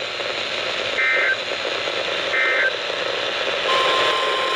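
NOAA Weather Radio emergency alert over radio hiss: two short screeching bursts of SAME header data about a second apart, then about 3.7 s in the steady single-pitch warning alarm tone begins. These are the signals that open a new weather warning broadcast.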